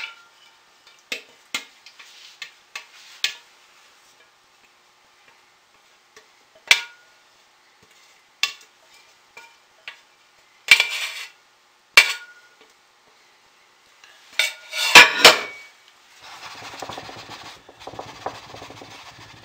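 Scattered clinks, taps and knocks of a utensil and mixing container as leftover soap batter is scraped out, with the loudest clatter about three quarters of the way in. Near the end a steady rustling, rubbing sound.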